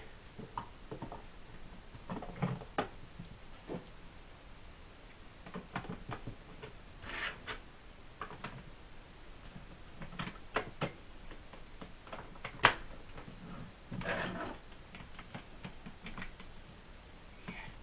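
Lego Technic pieces clicking, knocking and rattling at irregular times as they are handled and fitted back together, with a few brief rustles of handling.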